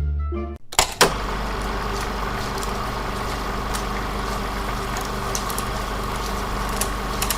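A few notes of music end just after the start; after a knock about a second in, a steady low mechanical hum with a faint high whine runs on, broken by scattered small clicks.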